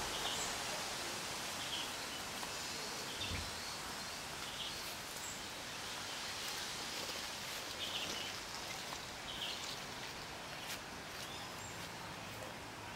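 Steady outdoor background hiss, with faint short bird chirps every second or two and a few light clicks.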